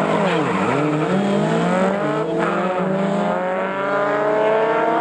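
Two air-cooled VW Beetle flat-four engines launching off a drag-strip start line. The revs dip as the clutches bite about half a second in, then climb steadily as the cars accelerate away.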